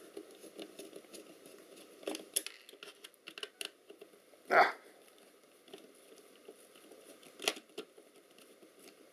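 Small clicks and knocks of a plastic camera body and its parts being handled and worked on by hand, with the loudest knock about halfway through and another shortly before the end.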